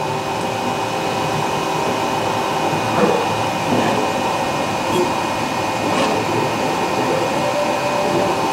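Raise3D N1 3D printer running a print at raised speed: a steady whir of its fans and stepper motors with several held tones as the print head moves quickly, plus a few faint ticks.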